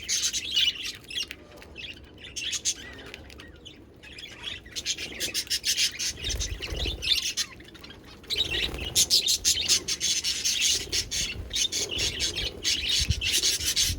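Budgerigars chattering with rapid high chirps and squawks, busier and louder from about halfway through, with a few low thumps.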